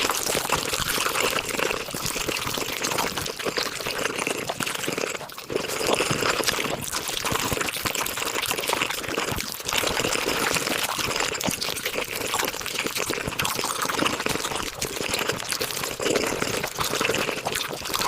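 Close-miked mukbang eating sounds sped up to five times speed: a dense, continuous stream of wet chewing and mouth clicks.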